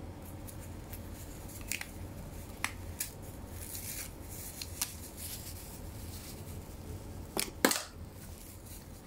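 A few short sharp clicks and light rustles from handling, with the loudest crackle near the end, over a steady low hum.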